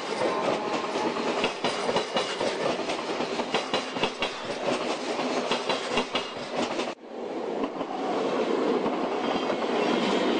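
Train passing, its wheels clattering over the rail joints in a quick run of clicks. About seven seconds in the sound breaks off abruptly and comes back as a steadier rumble.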